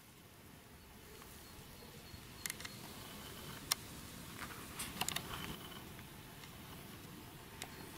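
Quiet outdoor background with a handful of short, sharp clicks spread through it, typical of handling noise from a handheld camera.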